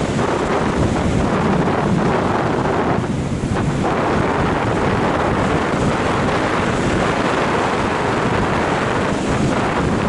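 Loud, steady rush of wind buffeting the microphone of an action camera mounted on an RC sailplane in flight, with the airflow rumbling heaviest in the low end.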